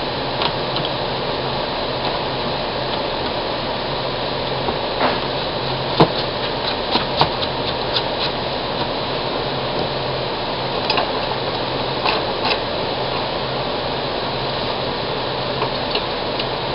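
Steady fan-like hum with a scattering of small sharp clicks and clinks from metal die grinder parts being handled while a nut is hand-tightened onto the shaft.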